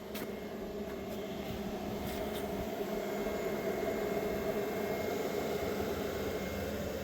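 Honda Civic's heater blower fan running steadily with the ignition on and the engine not yet started.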